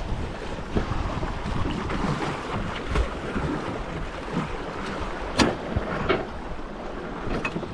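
Rushing river water around a drifting boat, with wind buffeting the microphone. A sharp knock about five seconds in and a lighter one just after.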